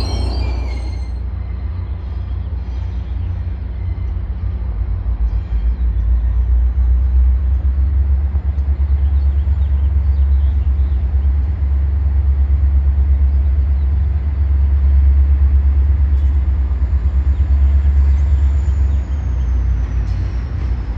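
Low, steady rumble of a Caltrain diesel locomotive approaching slowly, growing louder after a few seconds, with a faint high whine that drops in pitch near the end.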